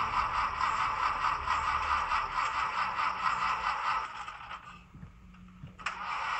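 Zimo digital sound decoder in an HO-scale VW KLv 20 rail car playing its simulated air-cooled VW engine, running through the model's tiny onboard speaker. About four seconds in the engine sound fades away. A click a second later and another near the end bring it back.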